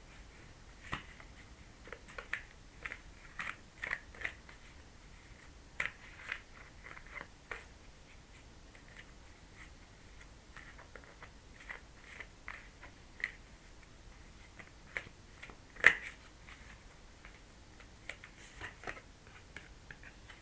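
Tarot cards being handled, shuffled and laid out: irregular light clicks and snaps of card stock, busiest in the first eight seconds, with one sharper, louder snap about sixteen seconds in.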